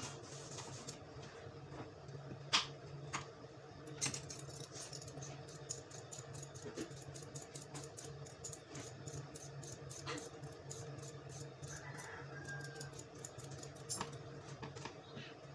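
Kitchen knife chopping white radish on a wooden cutting board. A few separate knocks come first, then fast, even chopping from about four seconds in until near the end, over a low steady hum.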